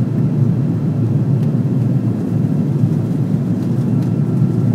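Steady low drone of an Airbus A330-300 in flight, engine and airflow noise heard inside the passenger cabin.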